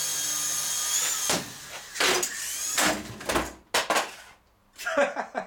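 Small Double Horse gyro-stabilised RC helicopter's electric rotor motors whining, then cutting off about a second in. A series of separate knocks and clatters follows as the helicopter crashes and falls to the floor.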